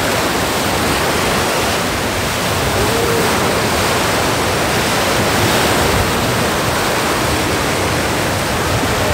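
Strong sea surf: waves breaking on a beach in a loud, steady rushing wash.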